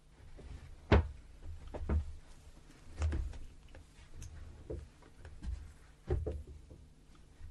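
Quiet room tone broken by a handful of short, soft knocks and bumps, the sharpest about a second in, with others near two, three and six seconds.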